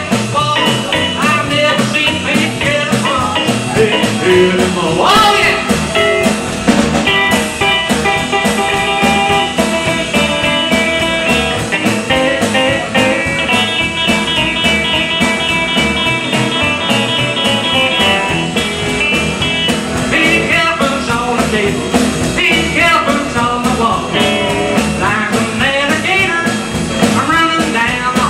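Live country band playing a song on upright bass, archtop acoustic guitar, electric guitar and drums. The middle is an instrumental break, and the lead vocal comes back in near the end.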